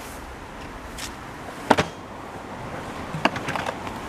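A sharp double knock a little under halfway through, then a quick run of smaller knocks and clatters near the end, over steady outdoor background noise.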